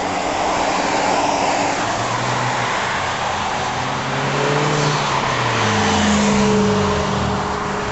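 Volkswagen GTI Mk4's turbocharged 1.8-litre four-cylinder, breathing through a Techtonics turboback exhaust with a Thrush glasspack, driving hard past at speed. The engine note climbs and then drops in pitch as the car goes by, over a loud rush of noise throughout.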